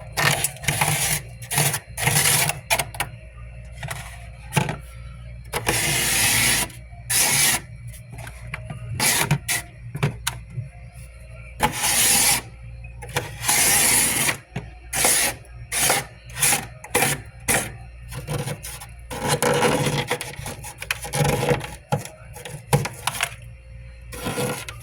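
Frost buildup being scraped off a humidifier: a run of irregular rasping scrape strokes, some short and quick, others drawn out for about a second.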